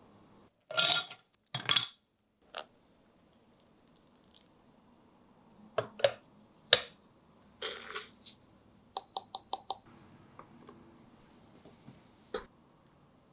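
Ice cubes and glassware clinking: two short rattles, then scattered knocks and clinks, then a quick run of about six bright ringing glass clinks, with ice in a glass coffee server under a ceramic dripper.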